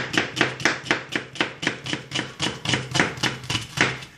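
Chef's knife cutting quickly and evenly through an onion and knocking on a plastic cutting board, about four strokes a second, stopping just before the end.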